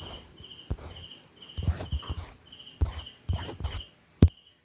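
Steady insect chirping, short high chirps about three a second, under several soft low knocks and scrapes of handling, with one sharp tap a little past four seconds in.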